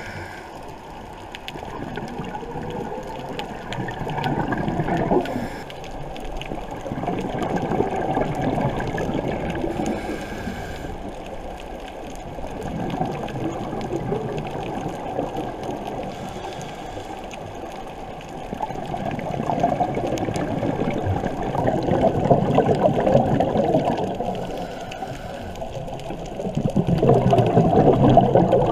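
Underwater bubbling and gurgling of a scuba diver's exhaled bubbles heard through the camera housing, swelling and fading about every five to six seconds.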